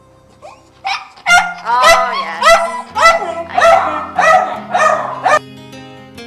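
A dog barking repeatedly, about eight barks in quick succession over some four seconds, then stopping. Soft background music runs underneath.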